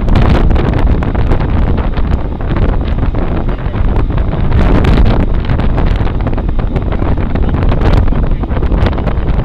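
Wind buffeting the microphone of a rear-facing camera mounted on a moving road bike, a steady, loud noise heaviest at the low end, with a few faint clicks.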